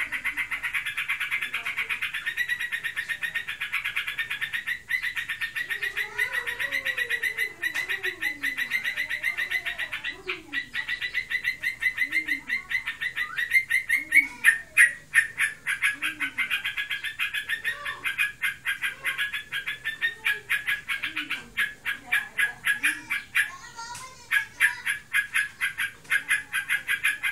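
Yellow-vented bulbul (trucukan) giving a long, unbroken rapid rattling trill of many notes a second, briefly louder about halfway and faltering for a moment near the end, which the owner can't tell apart as breeding excitement or full song. Under it, from a few seconds in, a lower call repeats in short falling notes about once a second.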